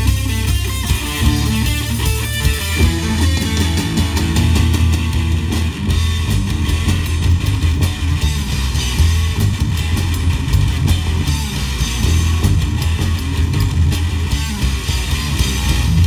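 Live rock power trio playing an instrumental passage through the stage PA: electric guitar, bass guitar and drum kit, without vocals. The sound grows fuller in the highs about three seconds in.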